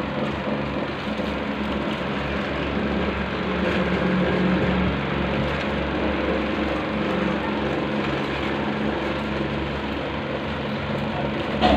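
A steady mechanical drone with a low hum that does not change, a running machine in the background.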